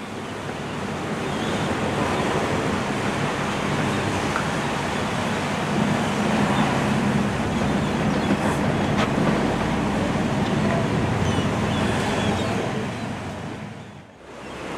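Open-sea ambience from a boat: a steady rush of wind and waves, fading in at the start and fading out near the end.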